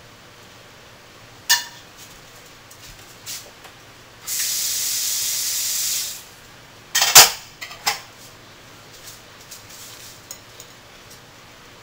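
A steady spray hiss lasting a little under two seconds, then a sharp knock with a few quick clicks, the loudest thing heard, and a scatter of small ticks and handling noises.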